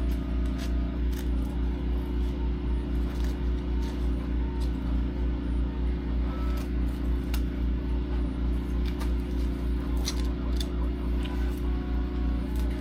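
Background music with a steady, pulsing low beat and short melody notes, with scattered light clicks and taps of small parts being handled over it.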